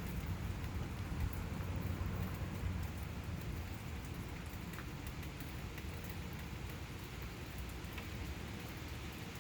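Steady rain falling during a thunderstorm, with a low rumble easing off over the first few seconds.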